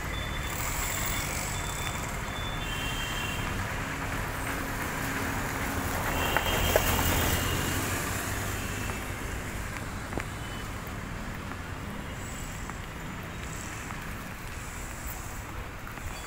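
Steady road traffic noise with a car passing close by about halfway through. Its engine and tyres swell to the loudest point and then fade away.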